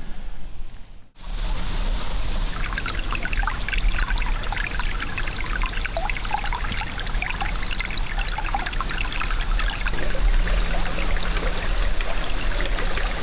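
Shallow woodland creek trickling and babbling over rocks, a steady rush of running water that begins about a second in.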